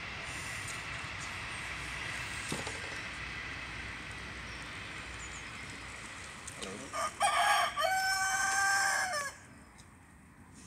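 Rooster crowing once, about seven seconds in: a few short broken notes, then a long held note that ends abruptly, about two seconds in all.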